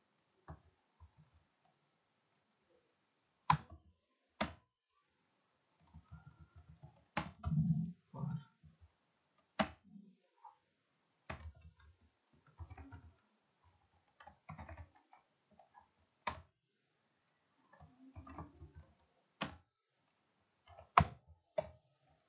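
Computer keyboard being typed on in short, irregular bursts, with sharper single key clicks standing out every few seconds.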